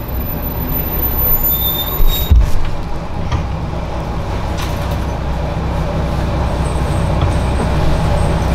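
Kanto Railway diesel railcar heard from inside the driver's cab, its engine and running gear giving a steady low rumble as it moves slowly along the track, with one loud clunk about two seconds in.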